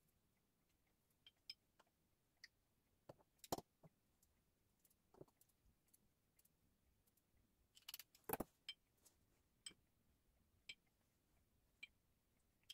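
Faint, scattered clicks and snips of kitchen scissors cutting canned pineapple rings into pieces, with two louder clicks about three and a half and eight seconds in.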